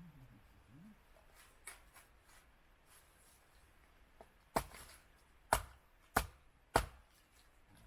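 Four sharp knocks in quick succession, roughly a second apart, after a couple of fainter taps.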